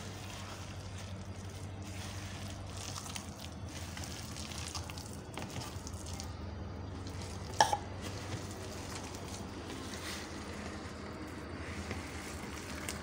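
A hand squishing and kneading a wet gram-flour pakora mixture with sliced onions in a bowl, a soft wet squelching over a steady low hum. A single sharp click comes about seven and a half seconds in.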